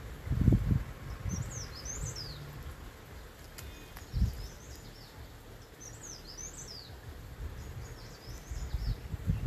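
A wild bird calling in short phrases of high, quickly falling chirps, a pair of sweeps about every four to five seconds, over steady outdoor background noise. Low dull thumps come near the start, midway and near the end.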